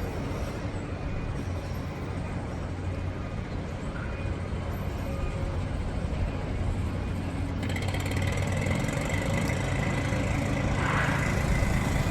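A motor vehicle engine running with a steady low hum, growing louder in the second half.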